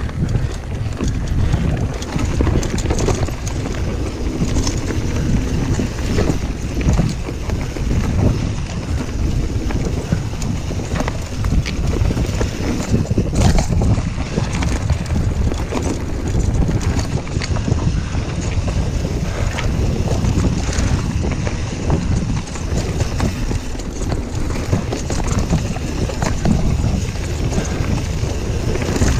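Mountain bike (YT Jeffsy) riding fast down a dirt woodland trail, with wind buffeting the camera microphone, tyre noise on the dirt, and frequent rattles and knocks from the bike over the bumpy ground.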